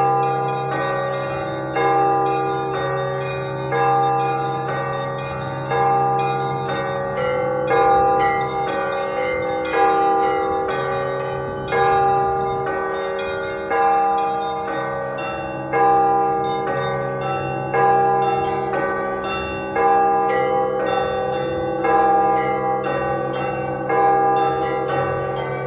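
Russian Orthodox church bell ringing (zvon): a heavy stroke about every two seconds, with smaller bells struck rapidly in a repeating pattern between them and a low bell tone hanging on underneath.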